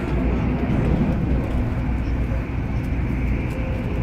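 MTR Airport Express train running, a steady low rumble heard from inside the passenger car.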